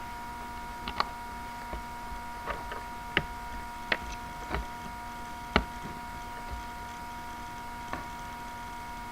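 Scattered small clicks and taps of a Samsung Galaxy Ace's plastic and metal parts being handled and fitted together during reassembly, about eight at irregular spacing, the sharpest about five and a half seconds in. A steady electrical hum runs underneath.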